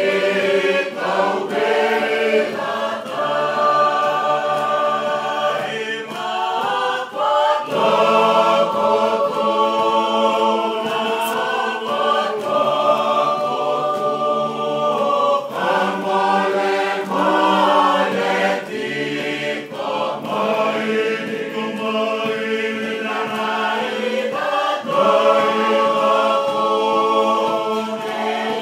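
A group of people singing together unaccompanied, many voices in harmony, in long held phrases with brief pauses between them.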